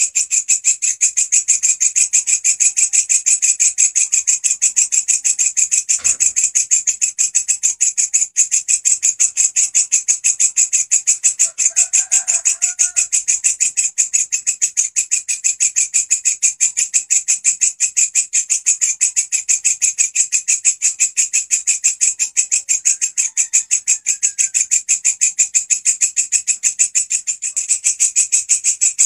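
Walang kecek bush cricket (katydid) stridulating: a continuous, fast, evenly pulsed high-pitched buzzing song.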